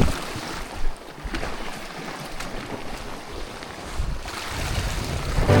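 Wind buffeting the microphone over the wash of the sea, with a few faint clicks. The wind rumble drops after the first second and builds again near the end.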